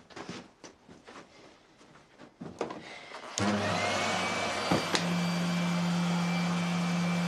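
Vacuum cleaner switched on a little before halfway through, its motor whine rising and settling into a steady running drone with a low hum. Before that come a few soft knocks and rustles of it being handled, and one sharp click follows about a second and a half after the start-up.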